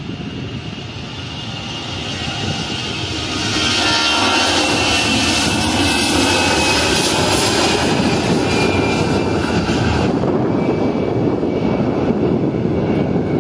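Airliner engines passing by. The noise builds over the first few seconds to a loud rush, with a high whine sliding down in pitch as the aircraft goes past. About ten seconds in the hiss drops away, leaving a low rumble.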